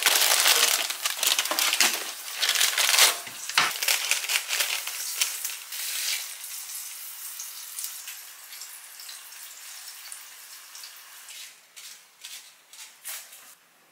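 Crinkly plastic packet of roasted gimbap seaweed rustling loudly as it is handled and snipped open with scissors, for the first six seconds or so. Then quieter scattered rustles and light taps.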